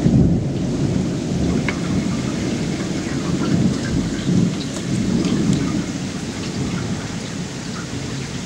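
Rolling thunder: a deep rumble that swells in several waves and slowly dies away toward the end, with scattered raindrops ticking.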